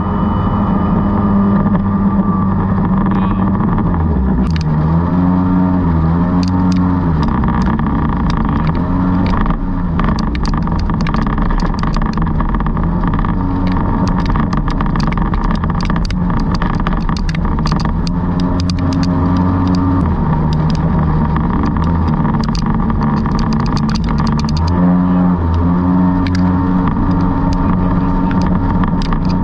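Jet boat engine running steadily under way, its pitch dipping and then rising about four to seven seconds in and again near the end as the throttle changes, with scattered sharp clicks throughout.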